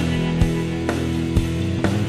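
Background rock music with sustained notes and a drum hit about twice a second.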